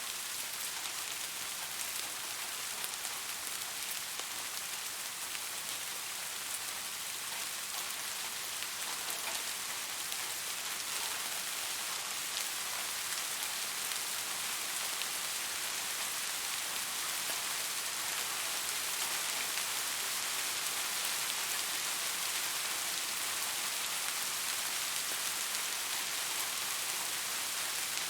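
Steady rain falling, a dense hiss with scattered individual drop ticks.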